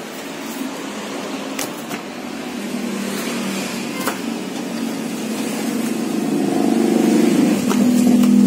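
A steady motor hum that grows louder over the last few seconds. A few sharp clicks and paper sounds come as printed books are handled.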